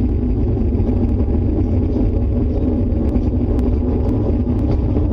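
Steady, deep, loud rumbling roar of a storm outside, which the household fears is an approaching tornado.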